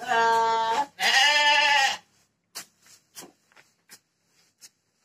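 Sheep bleating twice, two long calls one right after the other, followed by faint scattered scratches and rustles as chopped green forage is tossed about with a wooden stick.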